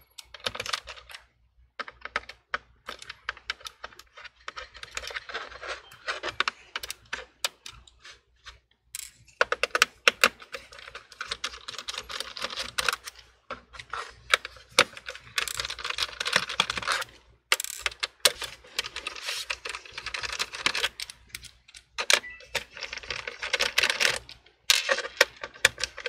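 Phillips screwdriver turning out the small screws of an MSI GF63 Thin laptop's plastic bottom panel: fast runs of light clicking and ticking lasting a few seconds each, with short pauses between screws.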